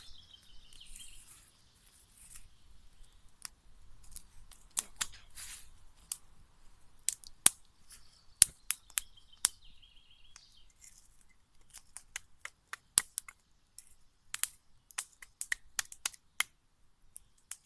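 Small wood campfire crackling, with irregular sharp snaps and pops.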